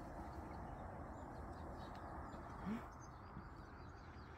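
Small birds chirping faintly over a steady outdoor background hiss. About two and a half seconds in, a brief low rising sound stands out as the loudest moment.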